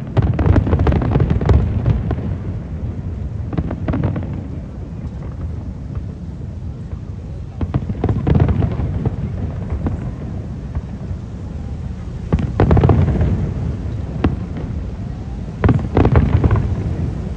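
Aerial fireworks shells bursting in a display: a dense run of heavy low booms and crackles at the start, a calmer stretch with scattered bangs, then new volleys near the middle and toward the end.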